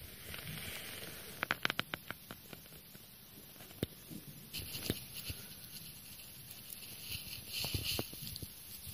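African pygmy hedgehog sniffing and snuffling at a fleece blanket, with soft fabric rustling. A quick run of sharp clicks comes about a second and a half in, then a few scattered single clicks.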